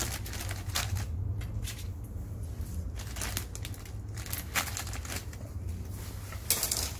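Clear plastic packaging bag crinkling and rustling as it is pulled off a rework station's case: an irregular run of crackles.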